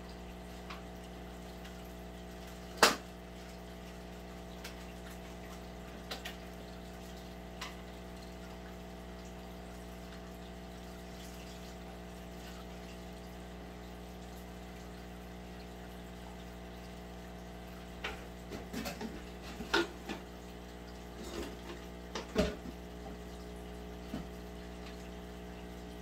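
Aquarium pump running with water moving, a steady hum. A sharp click about three seconds in, and a run of small clicks and knocks near the end.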